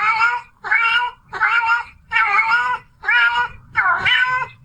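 A cat meowing loudly over and over: about seven evenly spaced meows, each about half a second long.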